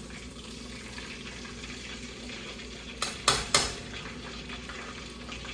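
Battered flounder frying in hot oil in a pot: a steady sizzle. About three seconds in come three sharp metal clinks in quick succession.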